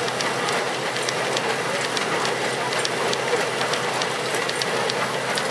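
Old stationary threshing machine running with a steady rattling whir, with scattered sharp ticks on top, as sheaves are fed into it.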